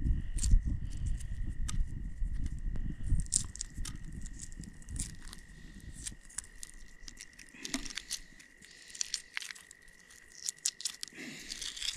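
Shells of hard-boiled eggs cracking and being peeled off by hand: small irregular crackles, clicks and crinkles, over the crackle of a wood fire. A low rumble fades about six seconds in, and a steady high tone runs underneath.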